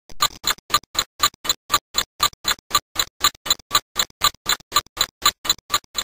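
Clock ticking steadily, about four ticks a second.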